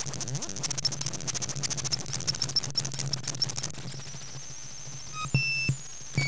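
Homemade stripboard modular synthesizer playing electronic bleeps. Rapid crackling clicks run over a steady low drone; from about four seconds in a high tone glides slowly, then short high bleeps at different pitches come in, with a thump near the end.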